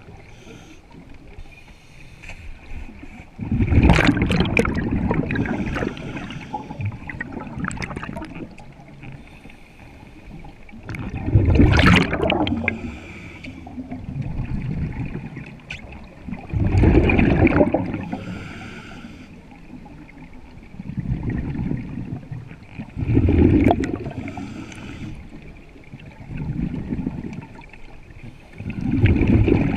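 Scuba diver breathing through a regulator underwater: exhaled air bubbles out in a loud gush about every five to seven seconds, five times, with quieter bubbling between.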